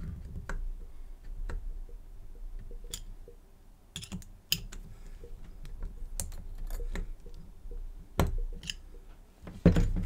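Small metal clicks and scrapes of a screwdriver working in the bottom of a padlock, irregular throughout. Two louder knocks near the end, as the screwdriver and padlock are set down on the bench mat.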